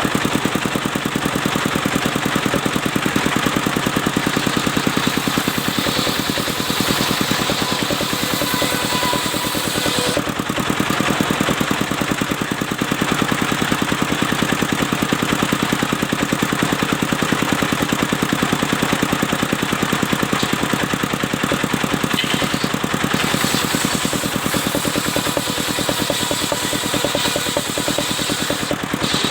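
Engine of a mobile circular sawmill running steadily with a fast, even firing beat.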